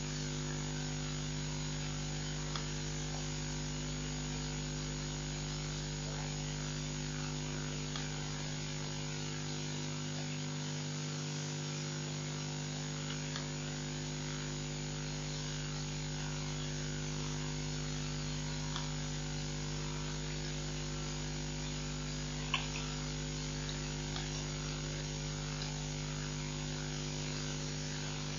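Steady electrical hum of a webcam's audio feed, several constant tones over a steady hiss, with a few faint scattered clicks and one sharper click about three-quarters of the way through.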